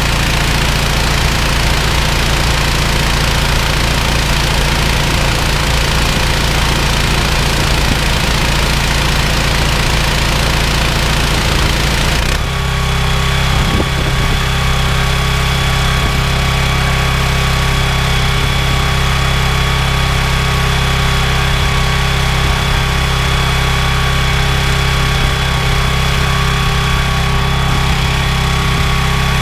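Honda petrol-engine pressure washer running, spraying water at pressure through a gauge nozzle with a loud hiss over the engine. About 12 seconds in the spray stops and the machine runs on with a steady engine drone, the trigger released.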